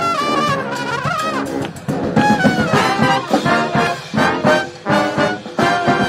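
Street brass band of trombones, trumpets, saxophones and sousaphone playing live. Held, sliding notes in the first couple of seconds give way to short, punchy ensemble notes on a steady beat.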